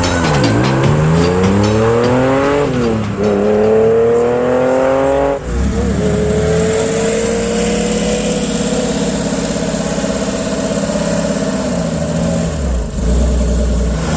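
Porsche 911 rally car's flat-six engine accelerating hard: the revs climb, drop briefly at a gear change about three seconds in, climb again and drop again at about five and a half seconds, then hold a steadier, slowly falling note with a short lift near the end.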